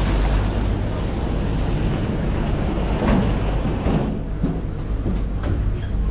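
Aluminium passenger ferry's engines running at the berth: a steady low rumble, with a few faint knocks between about three and five seconds in.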